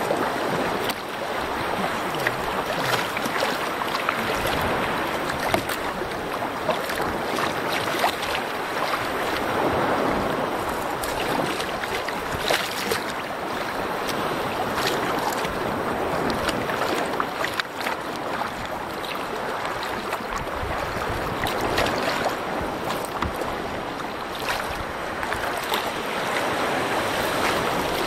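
Sea water splashing and rushing along a moving canoe, a steady wash with small splashes and clicks scattered through it, rising and falling in slow swells, with some wind on the microphone.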